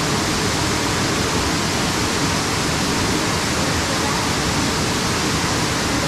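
Tall waterfall pouring down onto rocks: a loud, steady, even rush of falling water.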